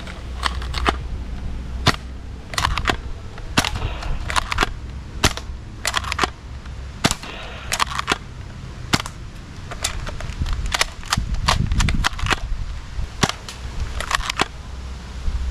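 Toy gun firing: a long string of sharp snapping shots at irregular intervals, some in quick pairs and clusters.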